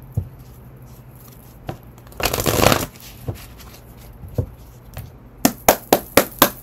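A tarot deck being shuffled by hand. There are a few scattered taps and a brief rustling rush about two seconds in, then a quick run of sharp card snaps near the end, about five or six a second.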